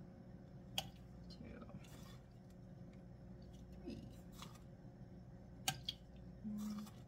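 Metal measuring spoons on a ring clinking and scraping as teaspoons of canning salt are scooped and tipped into a bowl: a few sharp clicks, two close together near the end. A brief low hum comes just before the end.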